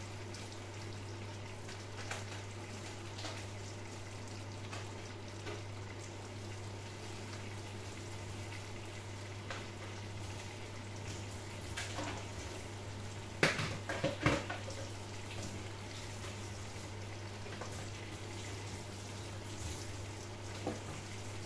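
Pot boiling under a glass lid on the stove: a steady bubbling hiss over a low hum, with a few light clicks and a louder cluster of sharp clicks about two-thirds through.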